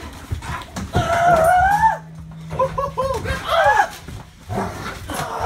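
A dog's high-pitched howling whine: one long rising cry, then a quick run of short rising-and-falling yelps, and a falling cry near the end.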